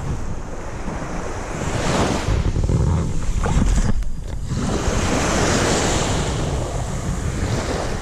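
Surf breaking and washing up a beach, with wind buffeting the microphone; a wave swells about two seconds in, and a bigger one surges in after a brief lull about halfway through.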